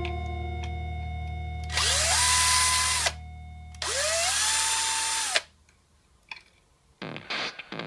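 Makita HR 2470 rotary hammer's electric motor switched on twice, each time spinning up quickly to a steady whine, running a little over a second and stopping abruptly.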